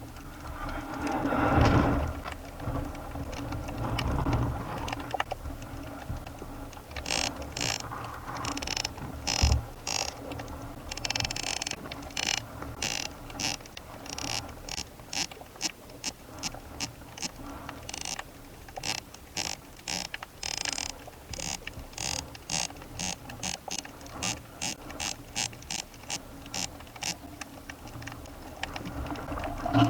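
Underwater sound from a spearfishing dive: low water noise with many short, irregular clicks and crackles that grow denser from about seven seconds in.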